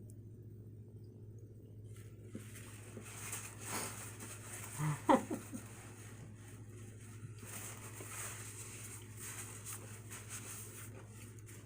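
Close-up mouth sounds of someone chewing a chopped cheese sandwich, with faint wet crackles and clicks, over a steady low hum. A brief falling vocal sound comes about five seconds in.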